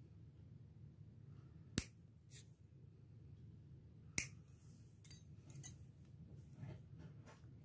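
Toenail nippers snipping through a toenail: two sharp clicks about two and a half seconds apart, then a few softer snips.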